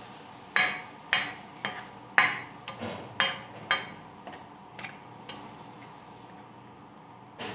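Ladle scraping and knocking against a metal wok while stirring vegetables, in a run of sharp clinks about two a second that grows fainter after about four seconds.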